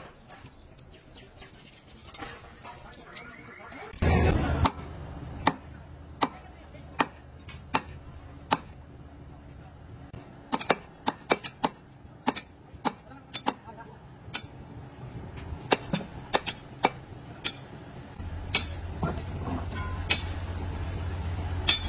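Hand tools knocking and clinking on metal: irregular sharp strikes, about one or two a second, over a low hum that comes and goes. A brief loud burst comes about four seconds in.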